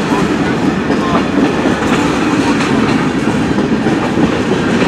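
Freight cars of a passing CN train rolling by: a loud, steady rumble of steel wheels on rail with a rhythmic clickety-clack over the rail joints.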